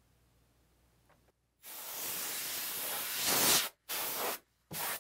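Can of compressed air spraying through its straw to blow dust off a console casing: one long hiss of about two seconds, then two short blasts.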